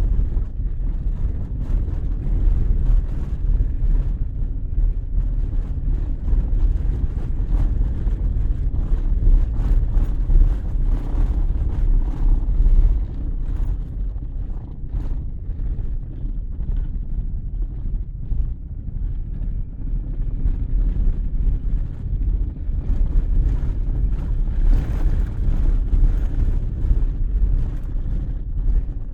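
ZAZ Slavuta driving, with a steady low rumble from the road and engine and frequent short knocks and rattles throughout. These are the knocks from the car's left side, which the owner puts down to worn, loose steering.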